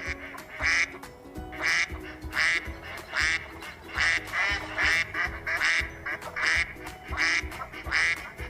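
Duck quacking over light background music: about a dozen short quacks, roughly one a second, some coming in quick pairs.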